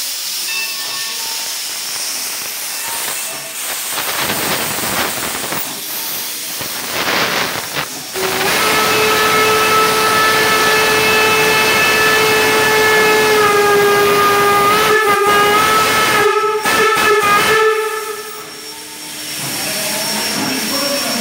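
Steam locomotive venting steam with a hiss, then blowing its steam whistle in one long, steady blast of about nine seconds, starting some eight seconds in, that wavers slightly just before it stops.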